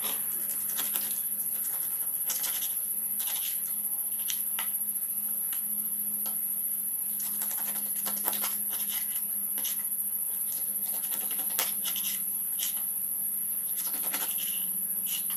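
Knife cutting a snakehead (murrel) fish into steaks on a wooden board: irregular clicks and scrapes as the blade goes through scales and bone. Behind it runs a steady high chirring of crickets and a faint low hum.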